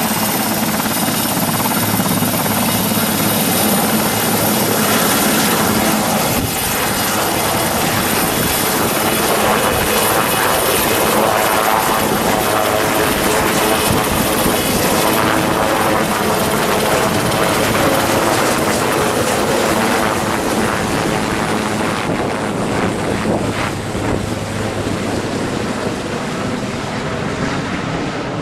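Sikorsky S-61 firefighting helicopter lifting off and climbing overhead: its turbines and rotor run loud and steady at take-off power, easing off a little over the last few seconds as it flies away.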